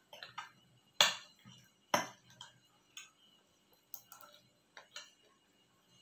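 Close-up crunching and chewing of deep-fried shrimp, heads and shells included: a run of crisp clicks and crackles, with the two loudest crunches about one and two seconds in.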